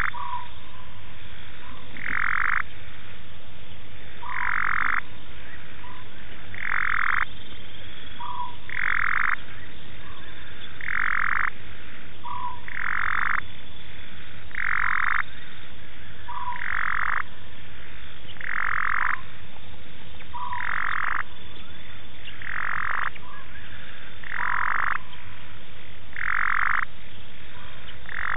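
Frog calling over and over at an even pace, one short call about every two seconds, several of them led by a brief lower note, over steady background noise.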